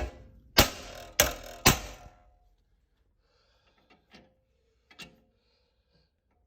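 Three sharp hammer blows on a sheet-aluminium amplifier chassis corner, about half a second apart, each ringing briefly, followed by a couple of faint taps. The blows stress-test a corner joint reinforced with an aluminium angle and flush solid aircraft rivets.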